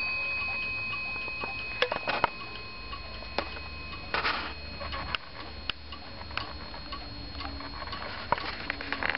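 Weight-driven Warmink Sallander wall clock ticking, its escapement giving a run of light, sharp ticks. The ringing of its bell, struck just before, dies away over the first second or two.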